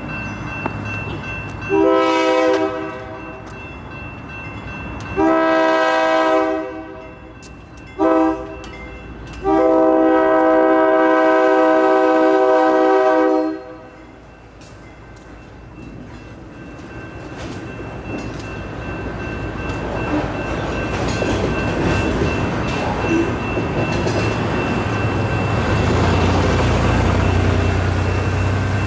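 GE U23B diesel locomotive sounding its horn for the grade crossing in the long-long-short-long pattern. The last blast is held about four seconds. The locomotive and its freight cars then rumble through the crossing, and a car passes close near the end.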